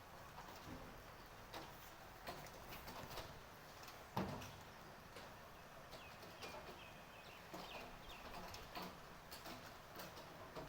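Light rain in a built-up area, with drops and drips tapping irregularly over a faint steady patter; one louder knock about four seconds in. Faint high chirps sound around the middle.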